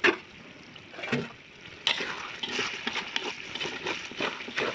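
A steel plate lid clanks once as it is lifted off an iron wok, then from about two seconds in a metal spatula stirs and scrapes through cooking chicken intestines in the wok, with wet sloshing.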